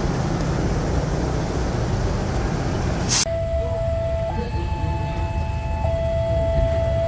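A passing train rumbles and hisses for about three seconds. After an abrupt cut, a level-crossing alarm sounds two steady tones, lower and higher, that alternate about every second and a half over a low rumble.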